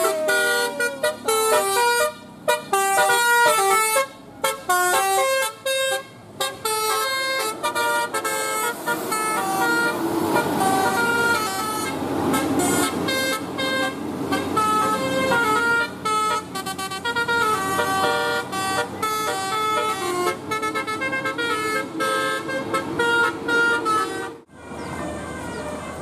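Telolet horn, a multi-trumpet vehicle horn driven by a DAV melody module, playing a fast tune of stepped notes with several pitches sounding together, over passing-vehicle road noise. The tune breaks off about two seconds before the end.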